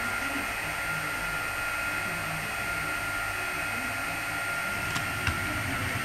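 Model train locomotives running slowly on layout track: a steady electric motor whine and hum, with a couple of light clicks from the wheels about five seconds in.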